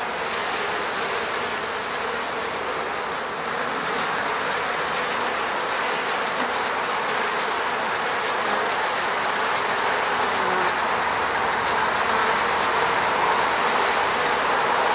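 Many honeybees buzzing around their hive: a steady, dense hum.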